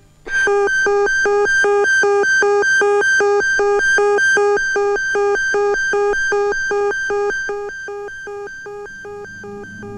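Alarm ringing as a rapid, evenly pulsing electric tone, set off by the press of the alarm button. It starts sharply and fades away over the last few seconds.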